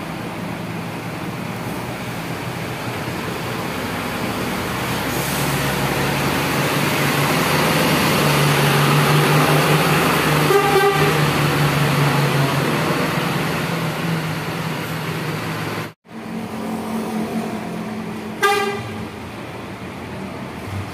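A coach bus's diesel engine running as the bus pulls out and passes close by, loudest about halfway through. A short horn toot sounds at about the same time. After a sudden break, another engine idles and a second, louder horn toot sounds near the end.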